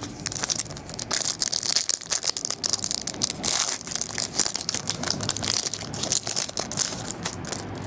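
Clear plastic bags crinkling and rustling in an irregular run of crackles as hands open them and pull trading cards out.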